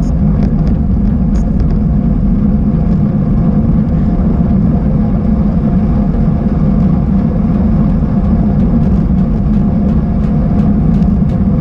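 Steady rumble of wind and rolling noise picked up by a camera riding on a bicycle over a rough track, with scattered small rattles and clicks.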